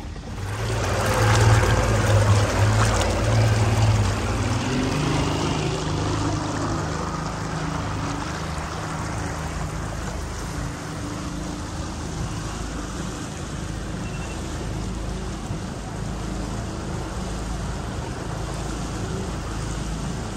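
Motorboat engine running steadily at a low idle, louder for the first few seconds, then settling to an even hum.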